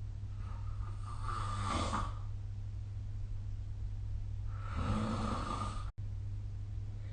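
A person snoring: two long snores about three seconds apart, the first starting about half a second in, the second cut off abruptly by a momentary dropout. A steady low hum runs underneath.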